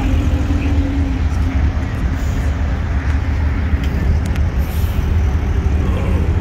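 Car engine and exhaust running at low revs as a car rolls slowly by: a steady low rumble, with a steady tone that fades out about a second in.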